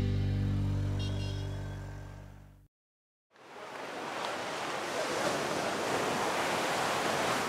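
Music ending on a held chord that fades away over the first few seconds, a moment of silence, then ocean surf washing steadily.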